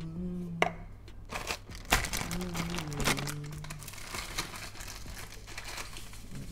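Thin plastic packet crinkling and crackling as it is handled and opened, with a few sharp clicks in the first two seconds.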